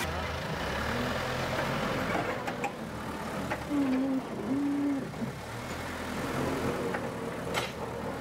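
An engine idling with a steady low hum. A few short, level low tones sound about four to five seconds in.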